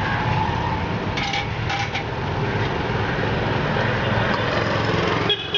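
A steady background hum, with two short metallic clinks of a kitchen utensil against a dish a little over a second in.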